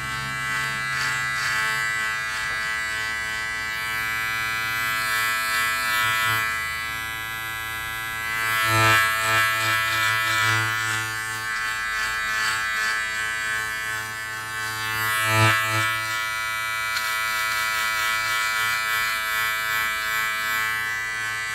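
Powertec TR-758 cordless beard trimmer running with a steady buzz as it cuts beard and neck hair, swelling briefly twice.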